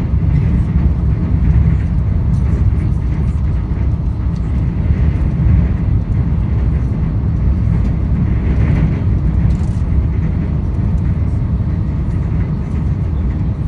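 Steady low rumble of a passenger train's wheels and running gear, heard from inside the coach as it rolls across a steel truss bridge.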